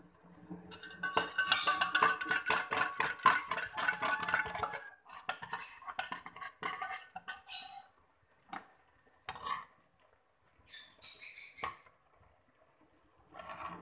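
Kitchen handling sounds while instant noodles are cooked in a frying pan: about four seconds of dense crackling and clattering, then scattered clinks and short rustles.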